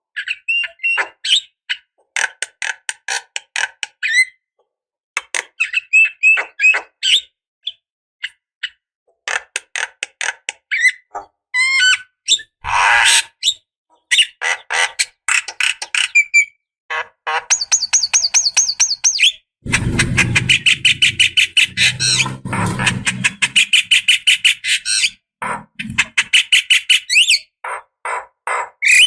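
Javan myna singing its chattering song: rapid runs of short clicks and whistled notes. A harsher rasping stretch comes about two-thirds of the way through.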